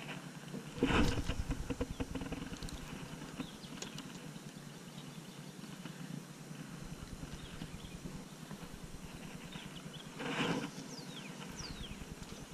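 Handling noise on the camera: hands and sweatshirt sleeves brushing and bumping against it while a fishing line is rigged, with two louder knocks, about a second in and again near the end.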